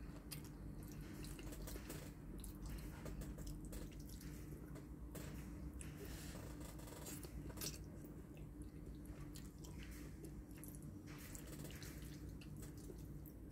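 Close-up wet mouth sounds of spaghetti being slurped and chewed, with scattered light clicks of chopsticks against the bowl. A faint steady hum runs underneath.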